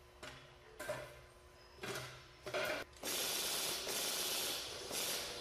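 Roller-forming machine working a stainless-steel tube: a few short mechanical clacks and rattles, then from about three seconds in a steady hiss-like running noise.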